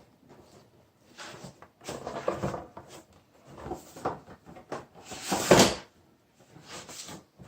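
Cardboard and plastic packaging being handled as the cooler is pulled out of its box: a string of irregular rustles and scrapes, the loudest about five and a half seconds in.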